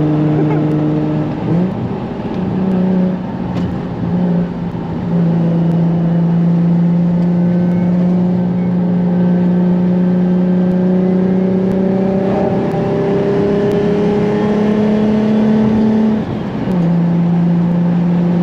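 Single-turbo Nissan 350Z's 3.5-litre V6 heard from inside the cabin under steady throttle, its engine note climbing slowly over several seconds. Near the end the note breaks off briefly and returns lower, as it shifts up a gear.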